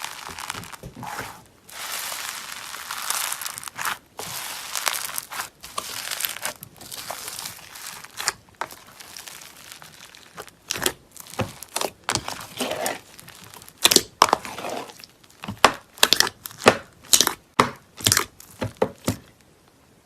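Slime being worked by hand: squeezed, stretched and pressed. It sounds more continuous at first, then turns to short separate squishes and pops about twice a second in the second half.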